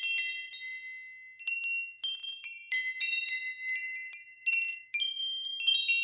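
Wind chimes ringing: irregular strikes of several high, clear tones that ring on and overlap one another, with a brief lull about a second in.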